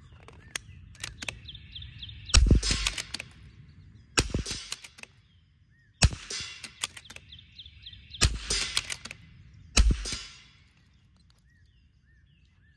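Custom Vudoo bolt-action rimfire rifle firing five shots roughly two seconds apart, with lighter clicks between them as the bolt is worked. The shooting stops about two seconds before the end.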